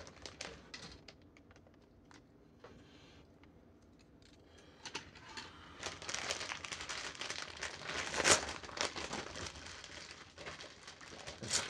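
Plastic kit bags crinkling and rustling as plastic model-kit runners are handled and unwrapped: a few light plastic clicks at first, then from about halfway on a busy, crackly rustling with sharp crinkles, loudest a little after two-thirds of the way.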